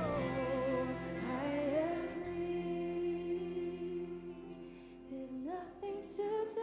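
Female soloist singing a slow, sustained melodic line into a microphone over soft choir-and-orchestra accompaniment. The low accompaniment thins out about two seconds in, leaving the voice holding one long note; near the end the voice rises into a new phrase.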